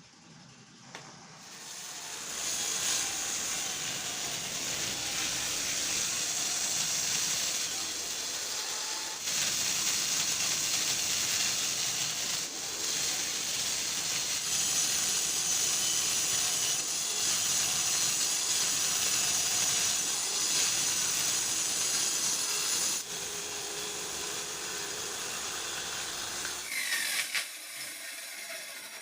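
A power tool working wood, a steady hissing noise that builds up over the first couple of seconds. It gets louder about nine seconds in and drops back somewhat near the end.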